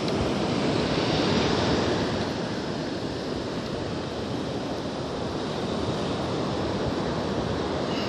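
Steady rush of ocean surf along the beach, mixed with wind buffeting the microphone; a little louder in the first two seconds.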